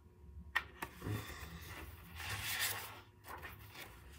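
Paper rustling and sliding as a page of a picture book is turned: a soft click, then a brushing hiss that swells and fades.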